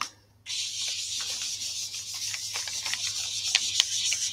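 Blending brush rubbed in small circles over white cardstock, laying ink onto the paper: a steady scratchy hiss with small ticks, starting about half a second in after a light tap.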